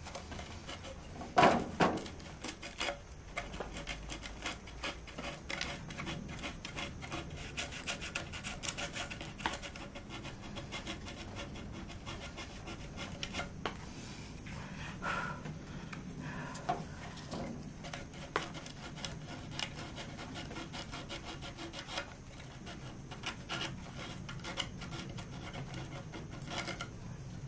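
Coarse 60-grit sandpaper rubbed by hand in a steady run of short scratching strokes on the broken edge of a PVC plastic clock housing, roughening the surface before gluing. There is a brief louder handling noise about a second and a half in.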